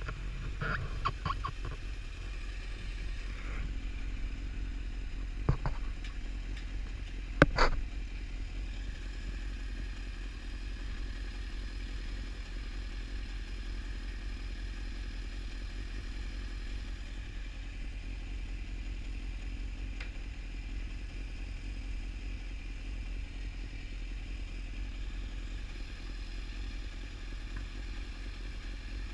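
Motorcycle engine idling steadily while the bike stands still, with a few sharp knocks and clatters in the first eight seconds or so, the loudest about seven and a half seconds in.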